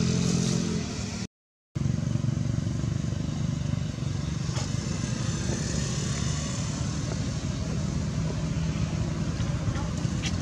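A motor vehicle engine running steadily with a low rumble. The sound drops out completely for about half a second near the start.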